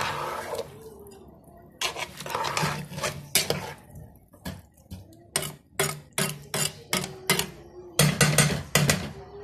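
A metal spoon and a perforated metal skimmer scraping and knocking against a metal cooking pot as rice is stirred in water. It scrapes at first, then about halfway through turns to a run of quick knocks.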